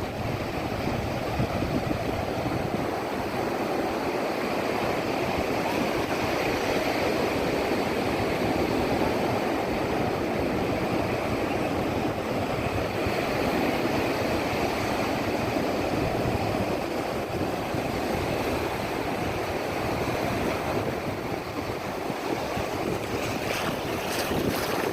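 Sea surf breaking and washing up a beach, a continuous rushing noise that swells and eases slowly, with wind rumbling on the microphone. A few brief clicks come near the end.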